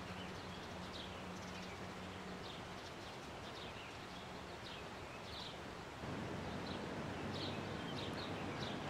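Outdoor ambience of small birds chirping again and again in short high chirps over a steady background hiss. The background gets louder about six seconds in.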